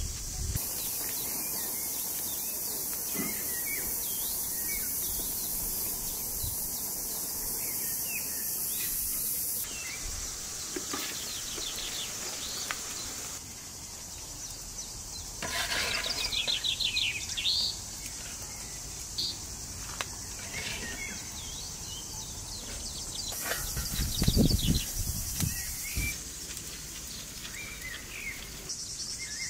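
Outdoor rural ambience: birds chirping and calling on and off over a steady high hiss, with a louder trilling call in the middle and a louder clattering handling noise late on.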